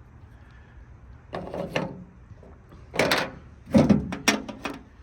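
Old metal and plastic car parts clattering and rattling as they are picked up and shuffled, in three short bursts.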